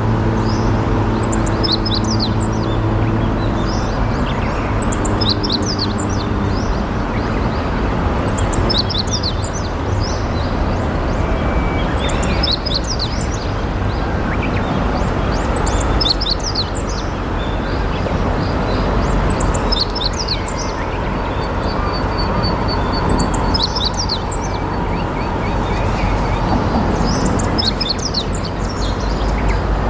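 A small songbird repeating a short, high phrase of quick notes about every three and a half seconds, around nine times, over a steady low rushing noise. A low hum is also present in the first few seconds and fades out.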